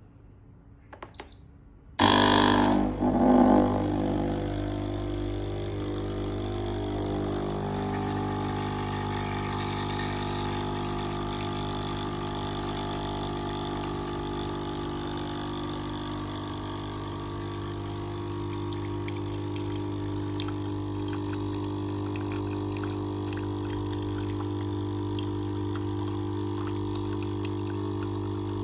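Capsule coffee machine's pump starting suddenly after a couple of light clicks, then running with a steady buzzing hum as it pushes water through to brew. It is loudest for its first couple of seconds.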